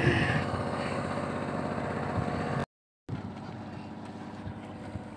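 An engine aboard a fishing boat running steadily with a low, even hum. It cuts out abruptly for about half a second in the middle and comes back a little quieter.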